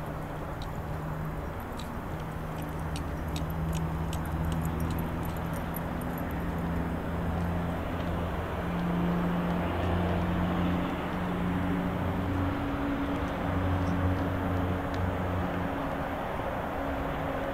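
Outdoor urban ambience dominated by a steady low engine hum and traffic noise, with a run of light clicks a few seconds in.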